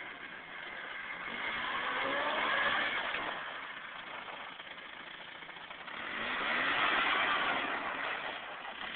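ATV (quad) engine revving as the quad is ridden along, its pitch rising as it gets louder twice: about two to three seconds in and again around seven seconds.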